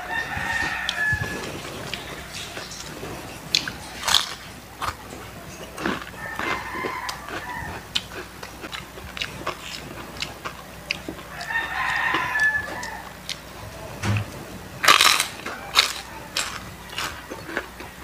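Crunching and chewing of crispy fried chicken skin, with the loudest crunches near the end. A rooster crows three times in the background, about six seconds apart.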